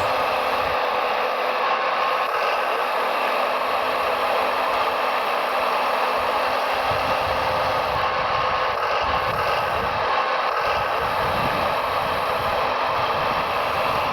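Steady mechanical whirring of radio-controlled scale construction models' electric motors and gears, with a low rumble joining about halfway through.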